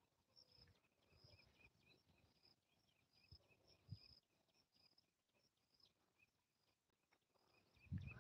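Near silence, with faint insect chirping repeating evenly at a high pitch throughout and a few soft low thumps. A louder low rumble starts near the end.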